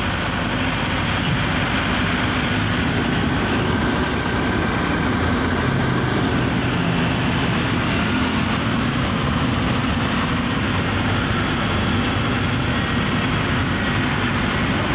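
Steady engine and road noise from inside a car driving through city traffic.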